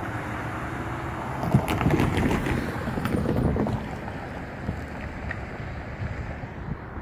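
Wind rushing on the microphone, with a car driving over the railroad crossing: a knock about a second and a half in, then a louder swell of noise that fades after about four seconds.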